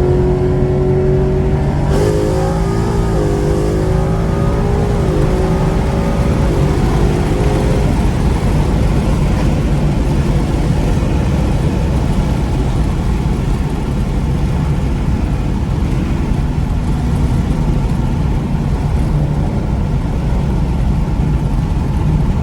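Ford Coyote 5.0 V8 with long-tube headers pulling hard on E85. The engine note climbs, drops back at quick upshifts of the 10-speed automatic about two and five seconds in, and fades after about eight seconds into steady rumbling road and wind noise.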